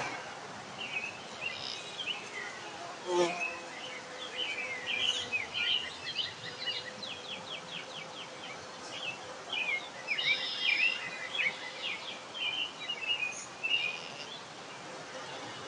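Several wild birds chirping and singing in quick, overlapping calls and short trills over a steady outdoor hiss, with one brief, lower, louder sound about three seconds in.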